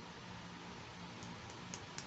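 Faint light ticks of small plastic toy pieces being handled, a few of them in the second half, over a steady background hiss.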